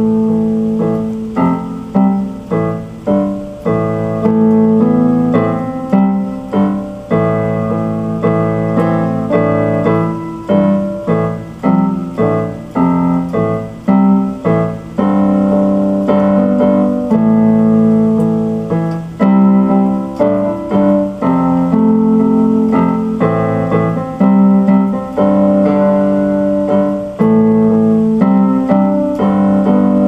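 Piano music played on a digital keyboard: held chords under melody notes, with new notes struck about once a second.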